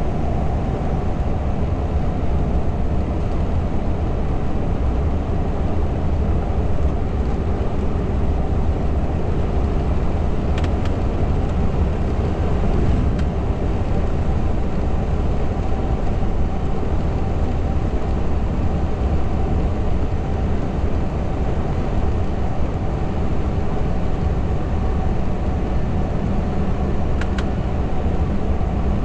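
Scania R580's V8 diesel engine and tyre and road noise heard from inside the truck's cab while cruising: a steady low drone. A faint click comes twice.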